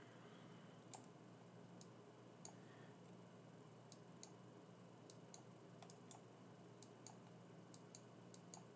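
Computer mouse clicking at irregular intervals, about fifteen short, quiet clicks, as a brush mask is painted on screen.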